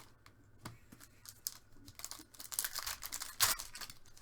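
Plastic wrapping on trading card boxes or packs being crinkled and torn by hand: scattered crackles after a brief hush, growing busier and louder in the last second and a half.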